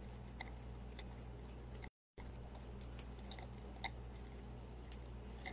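Faint scattered clicks and light handling noises from hands working ribbon and wreath materials, over a steady low electrical hum. The sound cuts out completely for a moment about two seconds in.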